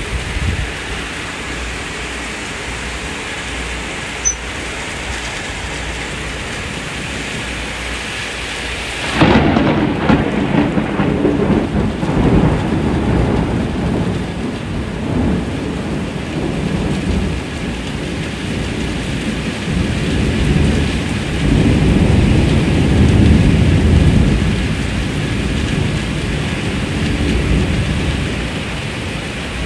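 Steady rain hissing, then about nine seconds in a sudden clap of thunder that rolls into a long low rumble. The rumble swells again past twenty seconds and eases back under the rain near the end.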